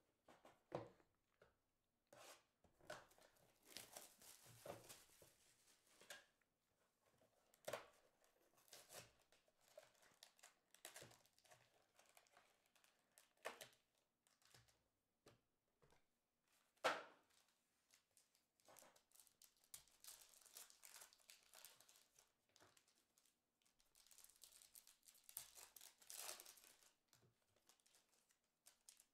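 A box of sports trading cards being opened and its foil card packs handled: quiet crinkling, rustling and tearing of wrappers and cardboard in irregular bursts, with the sharpest snap about 17 seconds in.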